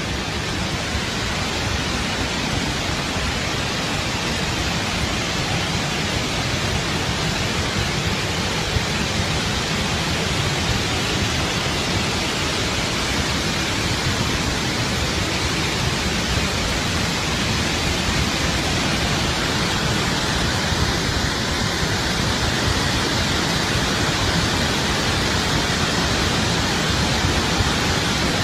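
A massive surge of muddy floodwater rushing down a channel: a loud, steady, unbroken rush of water.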